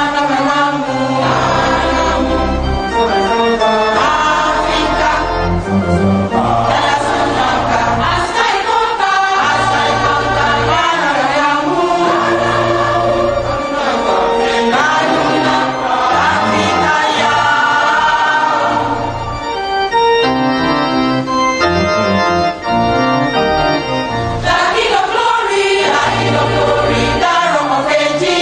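Gospel music: a choir singing with organ accompaniment, in sustained chords over a bass line.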